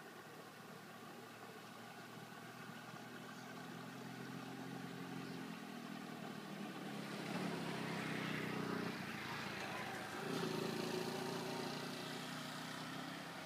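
A motor vehicle's engine going by: it grows steadily louder, is loudest in the second half with a short dip, then eases off near the end.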